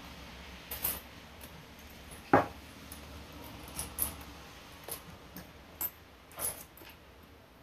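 Eating at a table: scattered short clicks of wooden chopsticks against a plastic cup-noodle tray, and mouth noises. About two and a half seconds in there is one louder knock as a ceramic mug is set down on the table.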